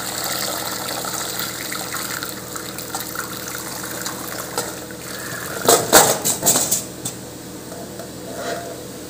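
Hot cooking water pouring out of a tilted steel pot through a perforated steel colander as parboiled cassava is drained, the splashing thinning out partway through. About six seconds in comes a quick run of loud knocks and clatter as the pot and the cassava chunks shift against the colander.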